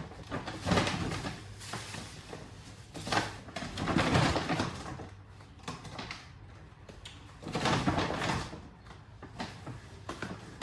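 Groceries being handled and unpacked: a few short bursts of rustling and handling noise, several seconds apart.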